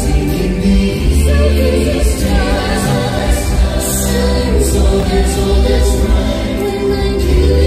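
Christmas show music played loud over a loudspeaker system: a song with choir-like singing over held chords and a heavy bass line.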